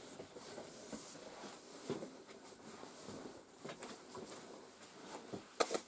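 Faint rustling of a hand rubbing through a miniature schnauzer's stripped, wiry coat, with a few light knocks and two sharp clicks near the end.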